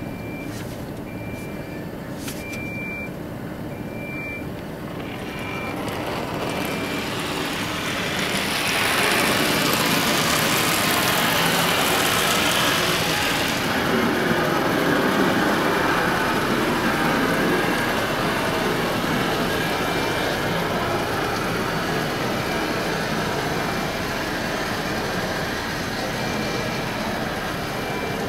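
Automatic car wash heard from inside the car. Beeping, about once a second, comes first. Then water jets spray over the car, loudest from about 8 to 14 seconds in, and settle into a softer, steady wash of water and machinery.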